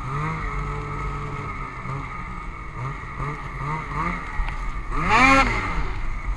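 Snowmobile engine revving up and down repeatedly while the sled ploughs through deep snow. There are several short throttle blips, and the loudest, highest rev comes about five seconds in.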